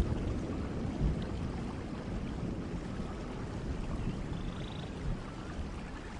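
Steady rain with a low rumble of thunder dying away over the first couple of seconds. A faint short chirping trill sounds about four and a half seconds in.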